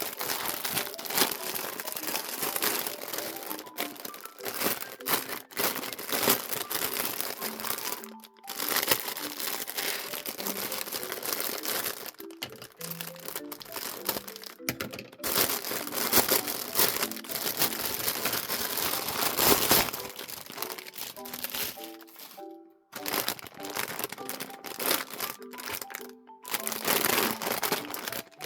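Packaging crinkling and rustling in bursts as it is handled and opened, over soft background music.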